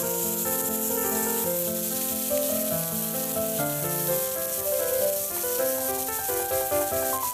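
Background instrumental music of stepping, overlapping held notes, over a steady high sizzle of food frying in oil.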